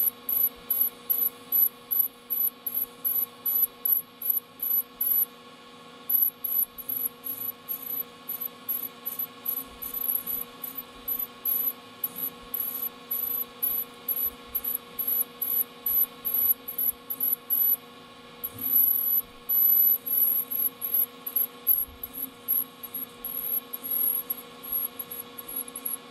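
Lathe running with a steady hum while a parting tool cuts into a small spinning workpiece. A high-pitched squeal pulses about two to three times a second as the tool is fed in short pecks to break the chips, and runs unbroken for a couple of seconds a little past the middle.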